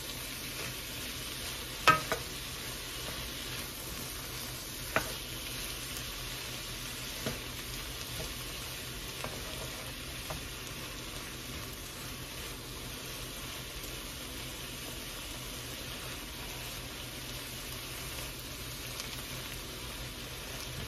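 Shrimp and bell peppers sizzling steadily in butter in a skillet, with a few sharp clicks, the loudest about two seconds in.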